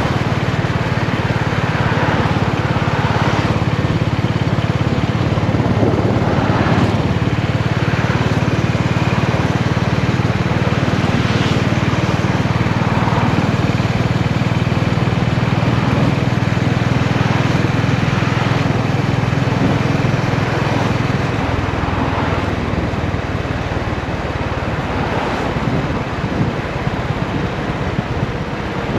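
Honda GB350's air-cooled single-cylinder engine and exhaust running steadily under way, with a steady low drone, over wind and road noise; about two-thirds of the way through the engine note drops and turns rougher as the throttle eases off.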